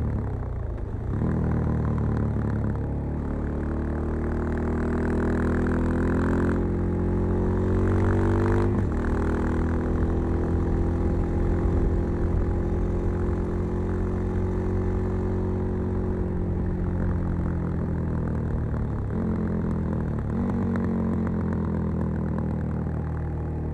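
Suzuki DR-Z 400 Supermoto's single-cylinder four-stroke, breathing through a Keihin FCR 39 carburettor and a LeoVince V3 silencer with its dB-killer fitted, heard while riding. The engine pulls through the gears, its pitch dropping briefly at a shift about a second in and again near nine seconds, then runs at a steady speed with small dips later on.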